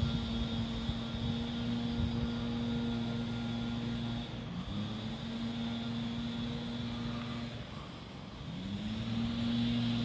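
A motor running with a steady hum that cuts out twice, each time spinning back up in a short rising glide to the same pitch.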